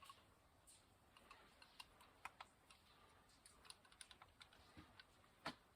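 Near silence with faint, scattered small clicks and taps, and one slightly louder knock near the end.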